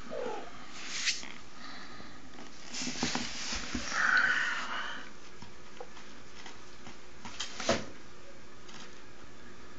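Young kitten giving a short, breathy growl-hiss about four seconds in, guarding a toy, with a few light knocks around it.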